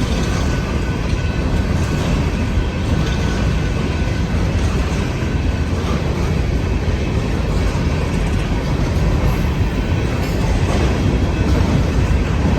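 Train passing close by, its cars running over the rails in a steady, heavy rumble.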